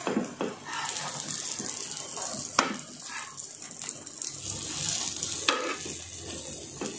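Egg and vegetable omelette mixture sizzling in a hot frying pan, with a sharp knock about two and a half seconds in and another about five and a half seconds in, as something is moved in the pan.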